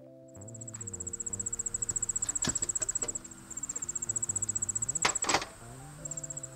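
An insect trills in a high, rapid, pulsing chirr that pauses briefly twice. Background music of held notes plays under it, and there are a few knocks, the loudest about five seconds in.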